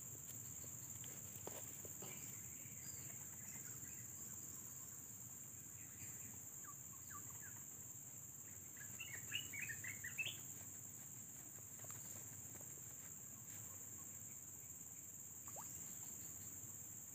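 A steady, faint, high-pitched insect chorus drones on, with a short run of chirps about nine to ten seconds in.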